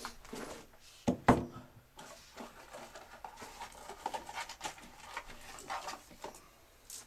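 Scattered clicks, knocks and rustling of things being handled in a small, echoing shooting booth, with a sharper double knock about a second in.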